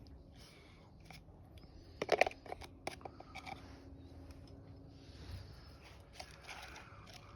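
Handling noises: a run of scattered clicks, scrapes and rustles, loudest in a quick cluster of clicks about two seconds in.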